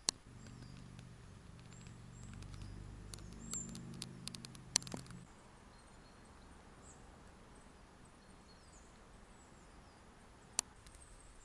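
Quiet woodland ambience: a low drone for the first five seconds or so, a few sharp clicks between about three and five seconds in and one more near the end, and faint high bird chirps throughout.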